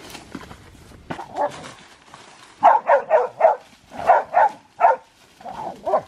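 Hog dogs barking in quick runs of sharp barks at a caught wild hog, starting about two and a half seconds in. Before that, faint footsteps crunching through brush and dry leaves.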